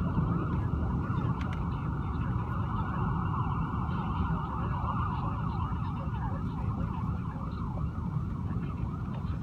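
Ambulance siren sounding continuously, its pitch sweeping rapidly up and down, over a steady low rushing noise.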